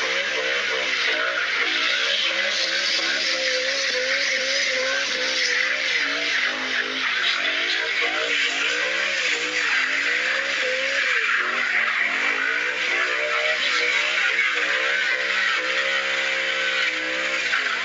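BMW coupe doing donuts, its engine revving up and down over and over while the rear tyres spin and squeal in clouds of smoke. Near the end the revs are held steady for a moment.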